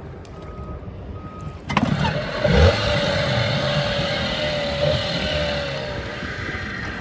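A short electronic beep repeats at one pitch about three times. From about two seconds in, a small outboard motor on an inflatable dinghy runs steadily over wind and water noise, with a low thud about two and a half seconds in.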